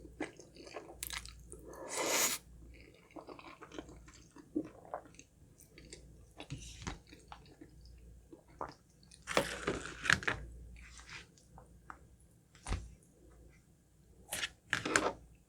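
A person chewing food close to the microphone in irregular crackly bites, with louder crunching about two seconds in, around ten seconds, and again near the end.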